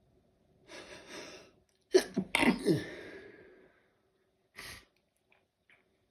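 A person sneezing in a sneezing fit: a noisy in-breath, then a loud sneeze about two seconds in, made of several quick bursts with a falling voiced cry. A short breath follows near the end.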